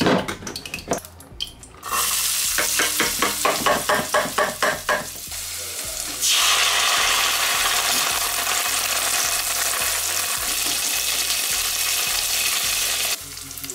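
Chopped onion frying in oil in an aluminium saucepan, first knocked and then stirred with a metal spoon in quick even strokes, about four a second. About six seconds in, passata goes into the hot pan and a loud steady sizzle takes over, which cuts off suddenly near the end.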